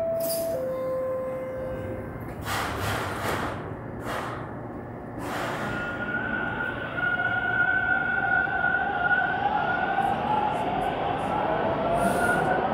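TTC T1 subway train: the last note of its descending door chime, a few short bursts of hiss, then the train pulls out, its traction motors whining in tones that climb in pitch as it accelerates.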